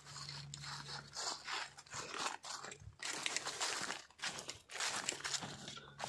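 Footsteps crunching through dry fallen leaves and brushing past dry reeds and undergrowth at a walking pace.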